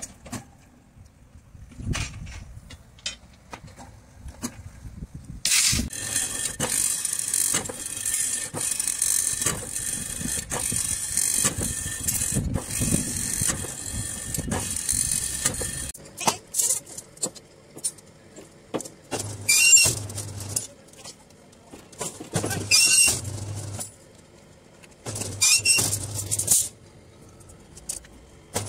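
Electric rebar bending machine at work bending steel bars into rings. After a few faint clicks, its motor and gears whine steadily for about ten seconds under clinks of steel. It then runs in short bursts about every three seconds, one for each bend.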